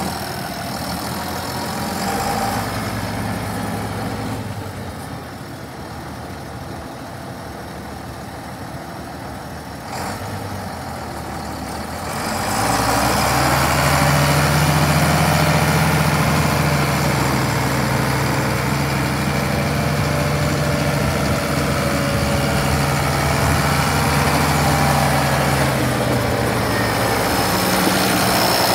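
1981 International Harvester 1486 tractor's six-cylinder turbo diesel engine running as the tractor drives around. It runs quieter for the first twelve seconds or so, then grows louder and holds a steady drone.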